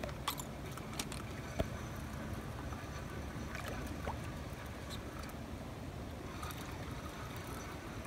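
Steady low rumble of river water around a boat at night, with a few light clicks and one sharper knock about a second and a half in.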